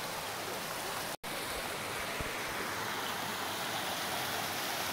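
Rocky creek rushing over boulders in small rapids: a steady rush of water, cut by a split-second dropout about a second in.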